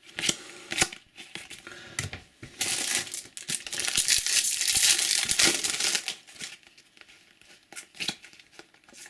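Trading cards flicked and handled in a few light clicks, then a foil booster-pack wrapper crinkling and tearing loudly for about three seconds, followed by softer rustling as the cards are handled.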